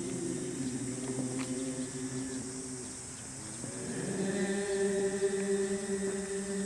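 Men's chorus chanting a Jizō goeika (Buddhist hymn) in long, drawn-out held notes. The voices thin out about three seconds in, then swell into a new, louder held phrase.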